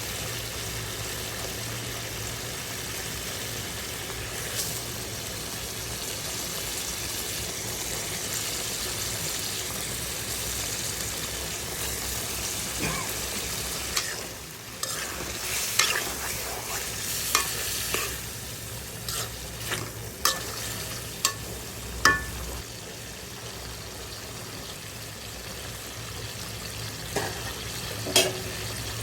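Food frying in oil in a pan with a steady sizzle. From about halfway in, a spatula stirs, scraping and knocking against the pan a number of times.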